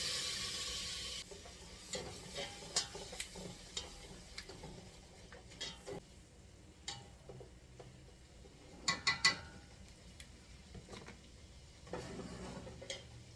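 Butter sizzling in a pot on the stove, cutting off abruptly about a second in, then a utensil stirring and knocking against the pot, with a few sharper clinks near nine seconds.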